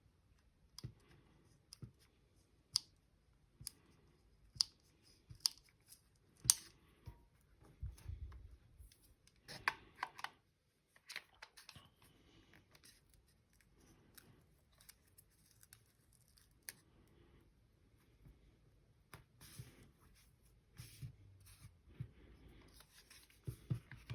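Scattered sharp plastic clicks and short scraping sounds from hands working on a Bose QC35 II headphone ear cup and its ear pad.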